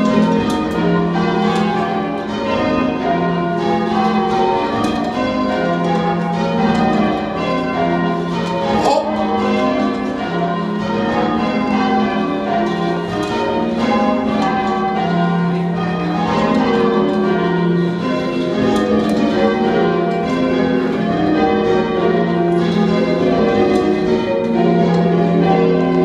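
Church bells in change ringing, heard from the ringing chamber below the bells: a ring of tower bells rung full circle from ropes, striking one after another in a continuous, even sequence, each stroke ringing on into the next, with the deepest bell returning every few seconds.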